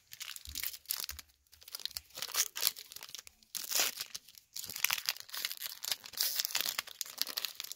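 Wrapper of a Topps Gallery baseball card pack being torn open and crinkled in the hands, in irregular crackling bursts with a couple of short pauses, busier in the second half.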